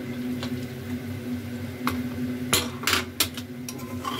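Aluminium pressure cooker being opened: its metal lid and a ladle clatter against the pot, with two light clicks and then three loud clanks in quick succession about two and a half seconds in. A steady hum from a kitchen exhaust fan runs underneath.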